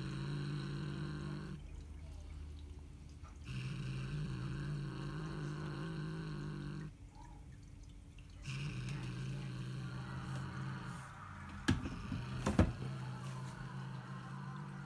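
Siamese cat growling over a caught feathered toy bird held in its mouth, a possessive guarding growl. Long low growls of a few seconds each with short pauses between, and two sharp clicks near the end.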